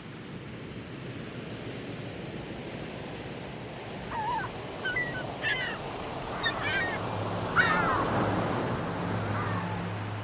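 Sea waves washing on a shore, fading in at the start, with a series of short bird calls from about four seconds in. A low steady hum comes in during the second half.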